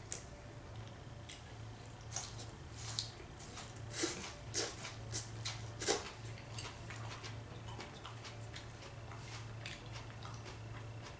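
Eating at a table: scattered light clicks of a knife and fork against a plate, with chewing, busiest between about two and six seconds in, over a steady low hum.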